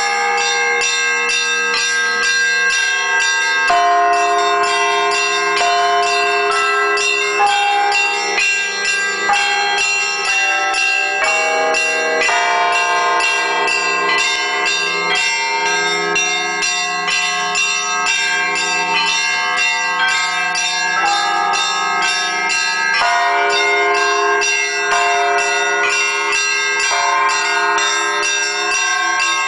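Church bells ringing without pause, many bells of different pitches struck in turn, their tones overlapping and ringing on.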